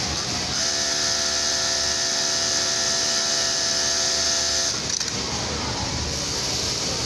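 Industrial single-needle lockstitch sewing machine running for about four seconds as it stitches a shirt placket, a steady whine that cuts off abruptly with a short click. A steady hum of other workshop machines runs underneath.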